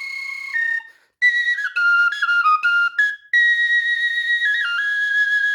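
A high-pitched bird flute in A-sharp playing a short melody: a phrase that stops about a second in, a run of quick stepping notes, then a long held note that drops a step and holds near the end.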